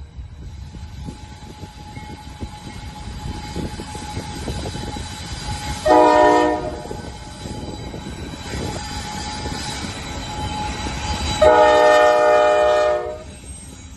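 Diesel locomotive's multi-chime air horn sounding a short blast, then a long one a few seconds later, over the steady rumble and clatter of a passing train.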